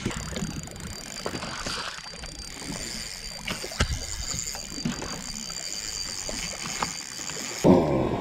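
Small waves lapping against a fibreglass bass boat's hull, with a few sharp knocks and clicks while a hooked fish is brought to the boat. Near the end comes a louder splash and rush as the fish is lifted out of the water and aboard.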